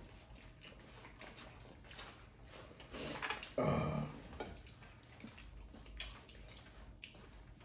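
Faint clinks of spoons against plates while eating, with a short pitched vocal sound about three seconds in.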